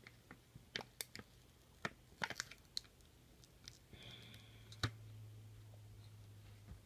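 Small scattered clicks and taps of earbuds and their packaging being handled while stuck earbuds are worked free, with one sharper click a little before five seconds in. A low steady hum comes in about four seconds in.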